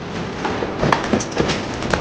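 A few sharp clicks and knocks over a steady hiss of noise, from interior trim and fittings being pulled out of a Land Cruiser's cabin.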